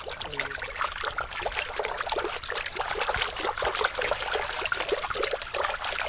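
A foley prop being rubbed and worked to imitate the sound of hair moving: a dense, irregular crackling rustle of many tiny clicks.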